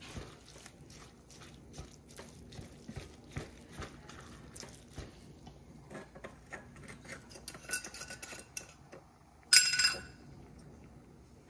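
Kitchen clatter of dishes and utensils being handled: a run of small clicks and knocks, a few ringing clinks about eight seconds in, then one loud ringing metallic clang near the end.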